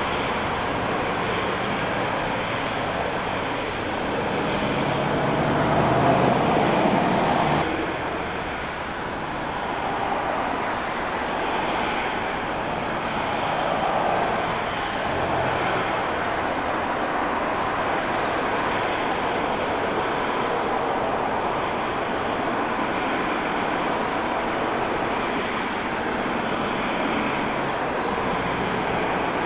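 Jet engines of an airliner landing, a steady rumble heard across the airfield. A louder stretch with a faint rising whine breaks off abruptly about eight seconds in, giving way to a steadier rumble as an Airbus A320-family jet comes in to touch down and roll out.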